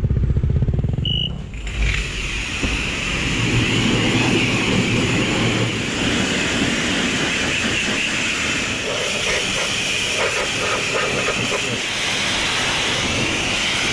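A motorcycle engine idles for about a second and a half. Then comes a steady hiss from a self-serve car wash's high-pressure spray wand, blasting trail mud off a motorcycle.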